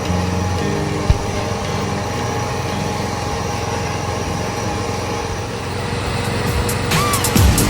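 Ride-on lawnmower engine running steadily under way, with a single sharp click about a second in. Music with a beat comes in near the end.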